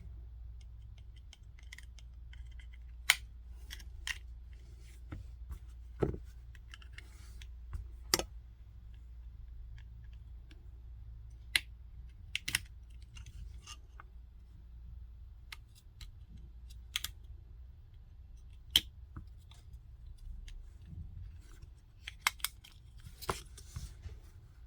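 Small hand tools clicking, tapping and scraping on the plastic case and parts of a Xiaomi Mi TV Stick 4K during bench repair. The sharp clicks come irregularly every few seconds, several close together near the end, over a steady low hum.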